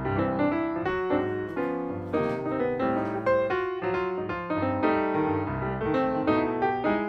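Background piano music, a melody of quick repeated notes over steady chords.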